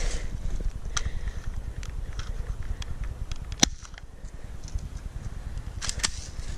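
Steady low rumble of handling and wind noise on a hand-held camera's microphone, with scattered small clicks and one sharp crack a little over halfway through.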